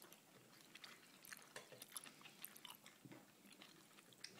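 A young child chewing cucumber: faint, irregular small clicks of mouth and teeth.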